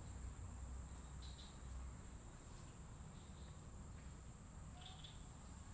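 Crickets trilling without a break in one steady high-pitched drone, over a low steady rumble.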